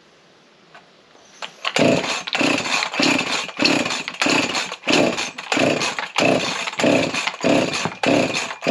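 Rebuilt Husqvarna 353 two-stroke chainsaw sounding in a quick series of short bursts, about two a second, for roughly seven seconds, starting about two seconds in.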